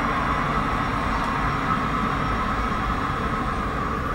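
Electric trams at a terminus: a steady whine and hum as one tram pulls away down the track past a second tram standing at the platform.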